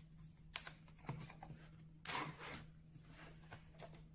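Light handling of wooden pieces on a workbench: a few soft wood-on-wood knocks and a short scrape about two seconds in as the pieces are moved and set in place.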